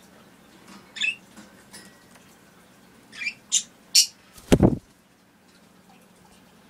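A cockatiel giving a few short, high chirps, with a single loud thump about four and a half seconds in.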